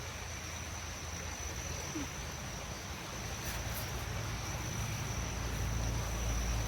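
Insects trilling with a steady high-pitched note over outdoor background hiss; a low rumble rises near the end.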